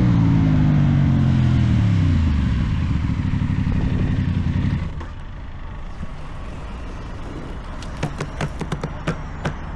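Aprilia Tuono 660's parallel-twin engine through an aftermarket Teen Top exhaust, revs falling steadily as it comes off the throttle, then dropping away sharply about five seconds in. A quieter low rumble follows, with a series of sharp clicks near the end.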